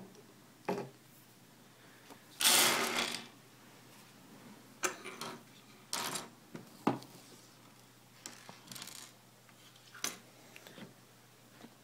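Small plastic twisty-puzzle pieces being handled and set down on a table: scattered clicks and taps, with one louder clatter of several pieces about two and a half seconds in.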